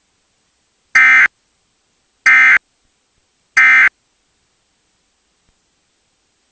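Emergency Alert System end-of-message signal: three short, identical bursts of warbling digital data tone, evenly spaced about a second and a third apart. They mark the close of the flash flood warning.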